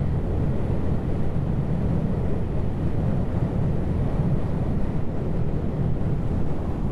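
Motorcycle riding at steady cruising speed: an even engine drone with wind buffeting on the rider's camera microphone.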